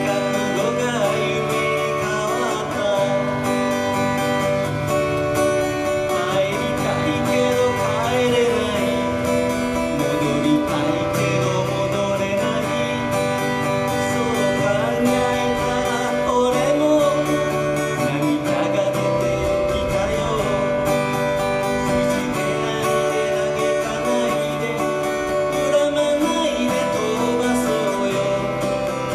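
Strummed acoustic guitar with a voice singing a song over it.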